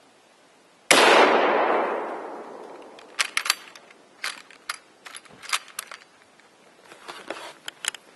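A single shot from a 1939 Japanese Type 99 bolt-action rifle in 7.7 mm Arisaka, about a second in, its report echoing back and fading over a second and a half. It is followed by a run of short metallic clicks and clacks as the bolt is worked.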